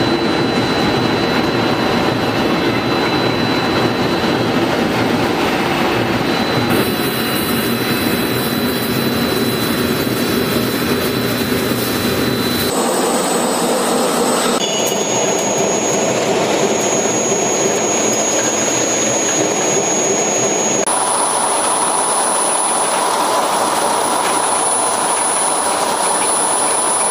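Multi-block straight-line wire drawing machine running: a loud, steady mechanical noise with a thin high whine. Its tone shifts abruptly four times.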